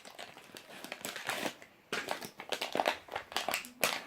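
Fidget spinner packaging being opened by hand: irregular crinkling and rustling with small clicks and taps.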